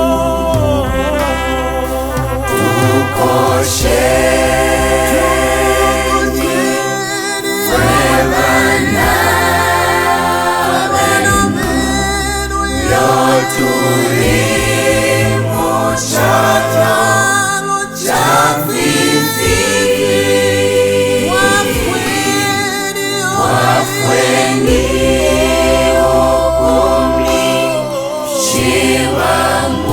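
A choir singing a gospel song in several voice parts, with a low bass line that drops in and out.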